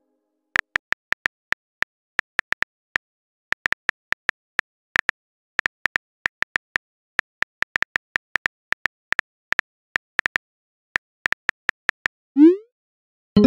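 Smartphone keyboard clicks as a text message is typed, an irregular run of quick taps. Near the end comes a short rising whoosh as the message is sent.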